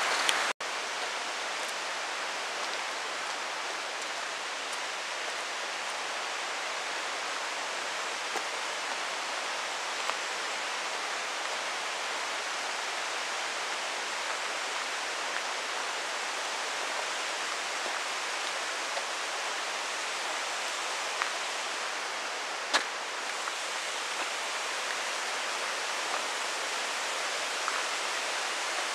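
Steady rush of a flowing stream, with a brief cut-out about half a second in and a few faint sharp ticks, the clearest about three quarters of the way through.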